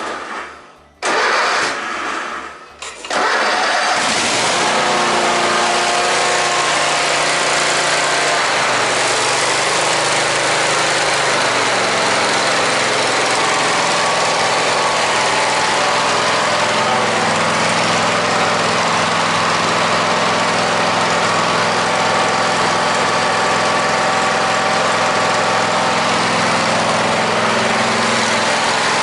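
Kohler Courage SV715 22 hp V-twin mower engine cranked by its starter for about two seconds, catching about three seconds in, then running steadily. The pitch shifts between about eight and twelve seconds in before settling. This is the first start after an oil and filter change, run to pump the fresh oil into the new filter.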